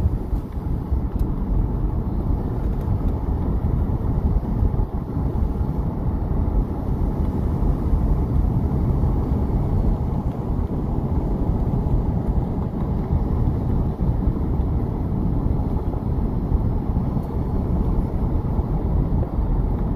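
Steady low rumble of a moving car, with engine, tyre and wind noise heard from inside the vehicle as it drives along a road.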